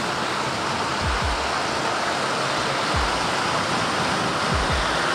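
Heavy truck rolling past on a wet road: a steady hiss of tyres on wet pavement, with a few short low rumbles.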